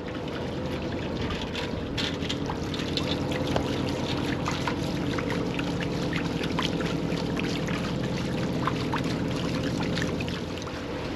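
Water splashing and trickling against the bow of an aluminium catamaran hull under way, with many small irregular splashes over a steady engine hum.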